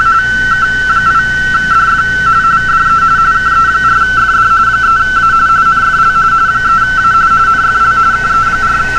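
Amateur radio RTTY signal from a Yaesu FT-450 HF transceiver's speaker: a steady, fast warble flipping between two close tones, the mark and space of frequency-shift keying. It carries a call sign and a field day exchange.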